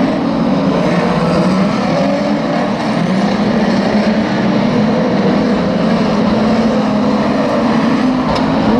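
Engines of a pack of classic banger racing cars revving together, several pitches rising and falling as the cars race in a bunch.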